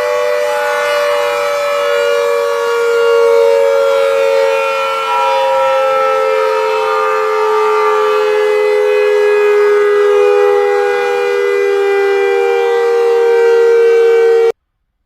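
Cold War era Secomak GP8 air raid siren sounding a loud, near-steady tone made of two close pitches that drift slowly lower. It cuts off suddenly near the end.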